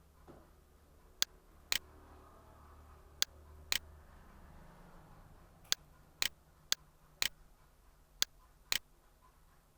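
Ten sharp clicks in five pairs, each pair half a second apart, at irregular intervals, over a faint low hum.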